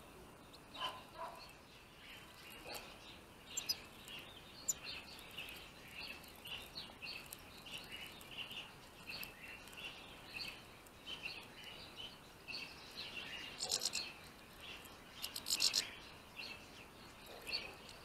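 Small finches chirping and twittering in a steady stream of short calls, with a louder burst of calls about 14 seconds in and again a second or so later.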